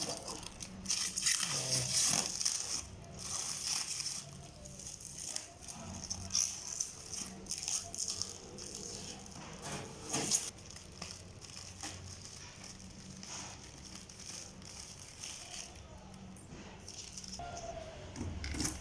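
Packaging being handled during an unboxing: irregular rustling and crinkling with scattered clicks and knocks, busiest in the first few seconds and again briefly about ten seconds in.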